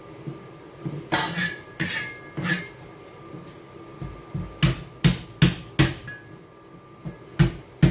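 Garlic cloves being chopped on a kitchen cutting board: sharp knocks of the blade, a loose group of four, then a quicker run of four and two more near the end.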